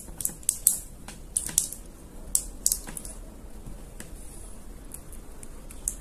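Thick enamelled copper winding wire being worked by hand into the slots of a small fan motor's stator, giving irregular light clicks and scratchy ticks as the wire rubs and snaps against the metal core. The slot is already nearly full.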